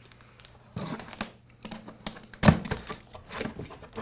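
A utility knife slicing through packing tape on a cardboard box, then the cardboard flaps being pulled open with rustling, scraping and a sharp knock about two and a half seconds in.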